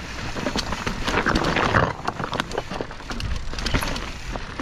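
Mountain bike riding down a rock garden of loose stones: tyres crunching and clattering over the rocks, with irregular knocks and rattles from the bike. The clatter is densest about a second in.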